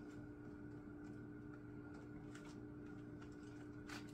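Quiet room tone: a steady low hum with a couple of faint, distant clicks.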